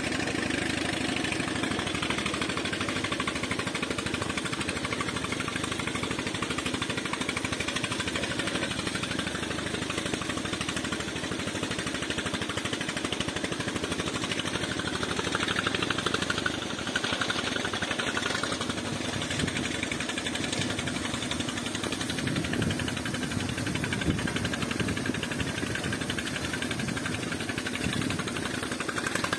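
An engine running steadily with a fast, even beat, while sand slurry from the suction pipe pours into a dump truck bed and water runs off it.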